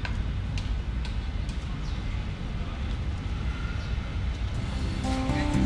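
Steady low rumble of outdoor urban ambience with a few faint sharp ticks. Acoustic guitar music fades in near the end.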